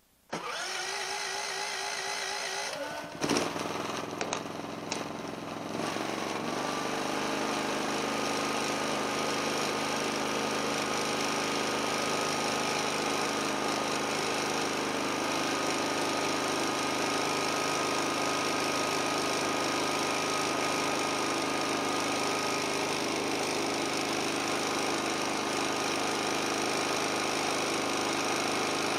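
Poxurio 6000 W dual-fuel inverter generator, fed from a propane tank, started for the first time: it cranks on its electric starter for about three seconds, catches with a loud knock and a few rough bursts, then settles within a few seconds into a steady run with a constant high tone.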